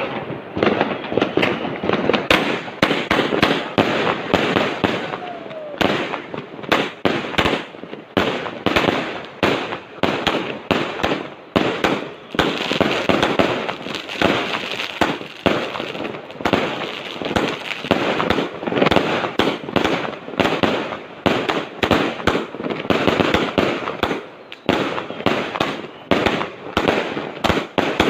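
Fireworks going off in a dense, unbroken barrage of rapid, overlapping bangs and crackles.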